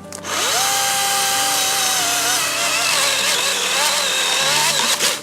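DeWalt FlexVolt 60V brushless battery chainsaw spinning up with a rising whine and running at a steady pitch, then cutting into wood, its pitch wavering under load. It stops suddenly near the end.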